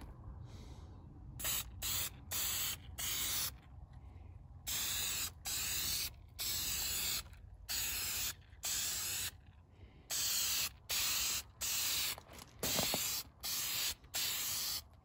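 Aerosol spray paint can hissing in a quick string of short bursts, each well under a second, starting about a second and a half in, as a coat of paint goes on.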